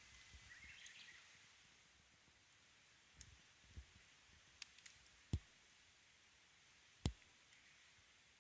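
Wood campfire crackling quietly: a few scattered small snaps, then two sharper single pops in the second half, over a faint steady hiss.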